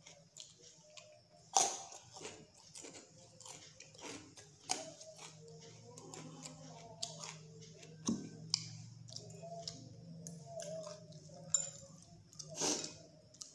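Close-up chewing of food, with crunchy bites and sharp mouth clicks scattered through, the loudest about a second and a half in and near the end. A low steady hum runs underneath.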